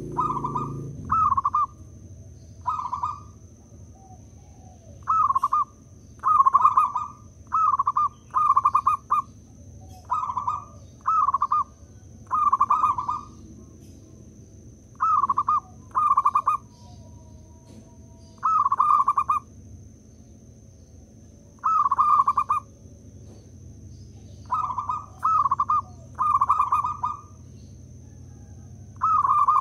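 Local zebra dove (perkutut) cooing its song (manggung): short ringing coos repeated in clusters of one to four, with pauses of one to three seconds between clusters.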